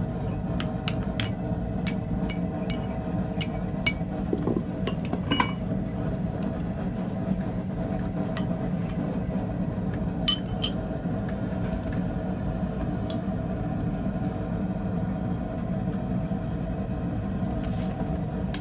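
A steady low mechanical drone with a few light metallic clinks and taps scattered through it.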